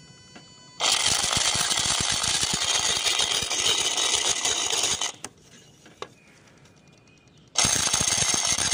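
Skoda Laura's electric auxiliary water pump running with a fast, harsh rattle, a sign of a failing pump. The rattle runs for about four seconds, cuts off, and starts again near the end.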